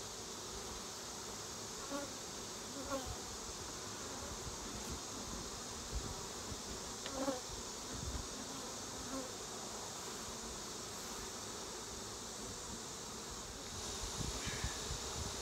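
Steady buzzing of a large, crowded honeybee colony around an opened hive, with a few light knocks and clicks as the wooden hive boxes and frames are handled, the strongest about seven seconds in.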